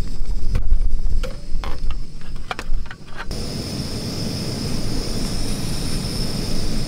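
Wind buffeting the microphone, with several light metal clinks as a folding metal windscreen is handled around a camp gas stove. About three seconds in, this gives way to a steady rushing noise.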